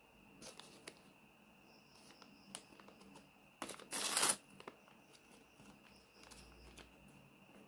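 Paper crinkling and rustling as a folded paper packet is opened by hand: a few soft crackles, then a louder rustle lasting under a second about four seconds in.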